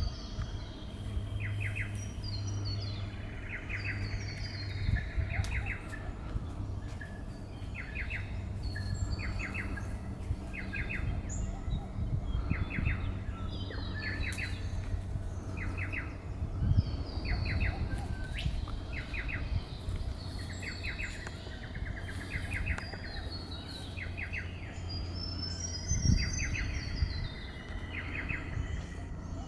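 Wild birds calling: a short burst of quick repeated notes comes again and again, roughly once a second, with higher chirps among it, over a steady low rumble.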